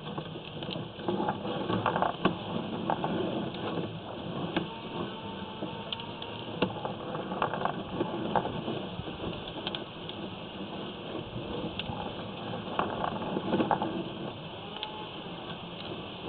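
Sewer inspection camera's push cable being fed down a drain pipe: irregular clicks and knocks over a steady hiss.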